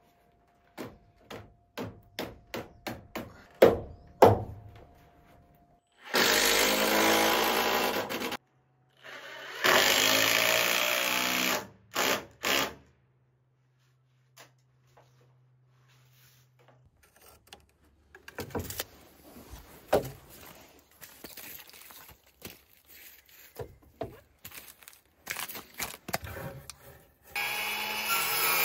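Timber-framing work sounds: a quick run of knocks on wood, two power-tool bursts of a couple of seconds each, then scattered knocks. Near the end a cordless circular saw starts cutting through a board.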